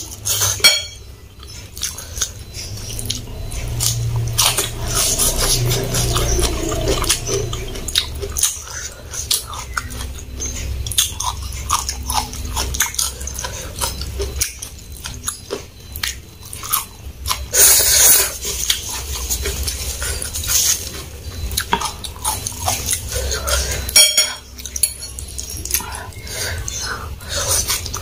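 Close-up eating sounds: chewing fried instant noodles and raw cabbage, with a metal fork clicking against the bowl.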